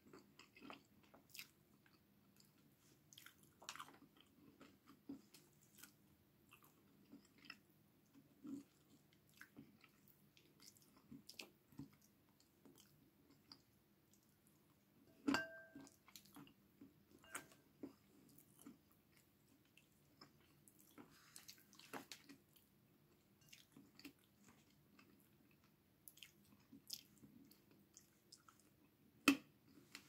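Close-up eating sounds of a person chewing chicken afritada and rice eaten by hand: faint, scattered chewing and wet mouth smacks. A sharper knock that rings briefly comes about halfway through, and another sharp click near the end.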